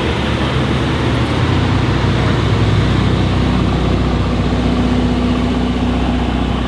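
Mercedes-AMG GT Black Series twin-turbo V8 idling steadily at an even pitch, with no revs.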